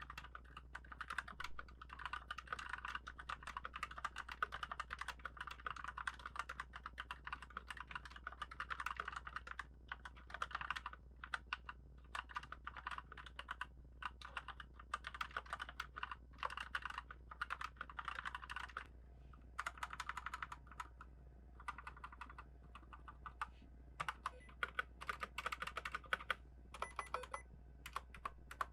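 Typing on an E-Yooso K610 mechanical keyboard with 60-gram black linear switches: a fast, continuous run of key clacks for about the first ten seconds, then shorter bursts of keystrokes with pauses between them, quickening again near the end.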